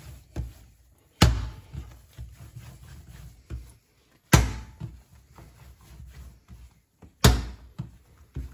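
Soft, buttery bread dough slapped down hard on a table three times, about three seconds apart, with quieter handling sounds between. This is kneading by beating, which makes the sticky dough change texture.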